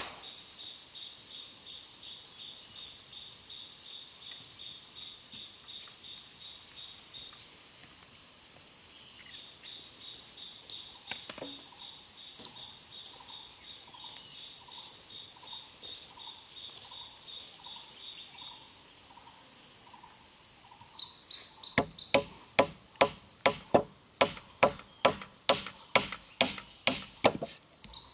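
Insects chirring steadily, with a pulsed cricket-like chirp over it. About three-quarters of the way in, a fast run of sharp hammer blows starts, roughly two a second, driving a nail into a wooden pole joint.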